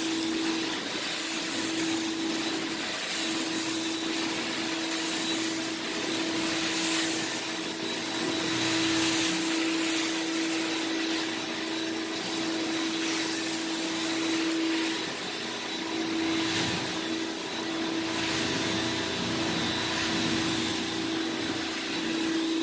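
Carpet-cleaning extraction wand drawn in strokes over wet carpet, its vacuum hissing as it sucks the rinse water and dirt back out, the noise swelling and easing with each pass. A steady hum runs under it and breaks off now and then.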